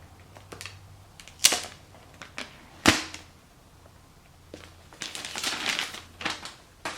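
Cardboard iPhone box and its packaging being handled: two sharp knocks about a second and a half and three seconds in, then a second or so of rustling and scraping, and a couple more clicks near the end.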